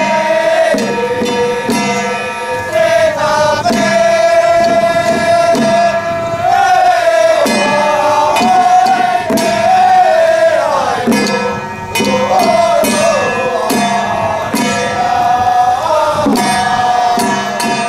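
Taiwanese temple ritual music: a shrill wind-instrument melody of long held notes that bend and waver in pitch, over hand drums and cymbal strokes.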